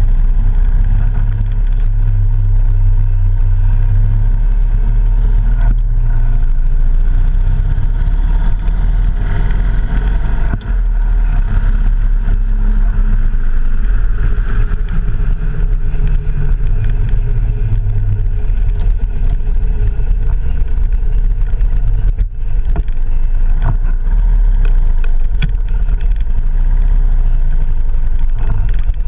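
Motorcycle engine running on the move, its note shifting up and down with the throttle, under a steady rush of wind on the camera microphone.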